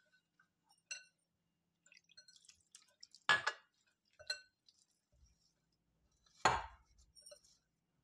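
A glass mixing bowl clinking as a hand wearing metal bangles kneads crumbly rice-flour dough in it. There are four ringing clinks, the loudest about three and a half and six and a half seconds in, with faint scraping between them.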